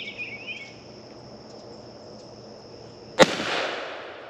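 A single gunshot from a hammer-fired long gun about three seconds in, its report echoing away through the woods for about a second. Before it, insects keep up a steady high tone, with a few bird chirps near the start.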